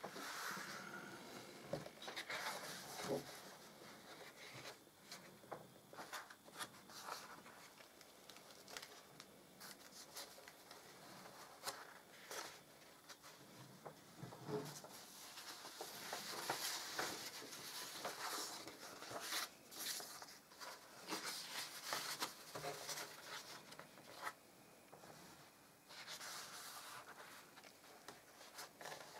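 Quiet rustling and light taps of stiff album pages being turned by hand, with paper rubbing as mounted postcards and envelopes shift against the card pages. The handling sounds come and go, busiest about halfway through.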